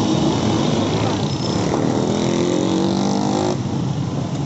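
A vehicle engine running in street traffic, rising in pitch and then cutting off suddenly about three and a half seconds in, over a steady wash of street noise.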